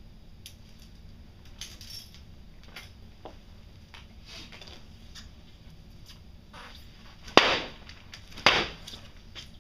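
Two sharp knocks about a second apart, the loudest sounds, over scattered light clicks and rustles.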